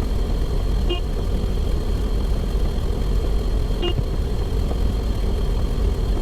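Steady low engine-like rumble with a short, high blip about once every three seconds.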